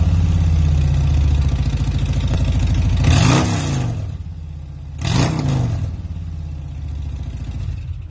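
2020 Harley-Davidson Road Glide Limited's Milwaukee-Eight 114 V-twin idling through Rinehart 4.5-inch slip-on mufflers, revved twice, about three and five seconds in, each rev rising and dropping back to idle.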